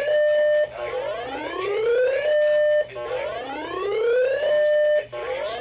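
Siren-like wail of a radio warning alert. Each cycle rises in pitch for about two seconds, holds a steady note for a moment, then cuts off sharply, and it repeats about three times. It sounds ahead of a severe thunderstorm warning.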